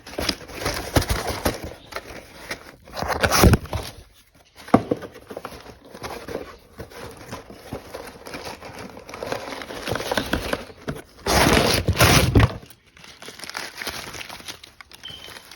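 Packaging being torn open and crinkled by hand in irregular rustling bursts, louder about three seconds in and again for about a second near the end.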